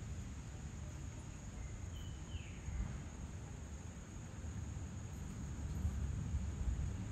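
Evening insects trilling steadily at a high pitch over a low rumble, with one short bird call about two and a half seconds in: a brief note followed by a falling whistle.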